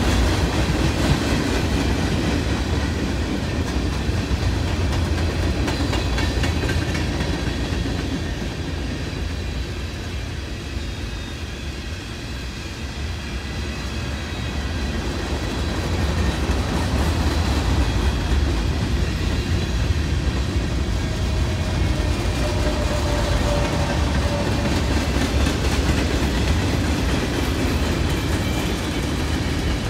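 A train rolling past on the rails, a steady noise of wheels and cars. It eases a little about a third of the way through and builds again.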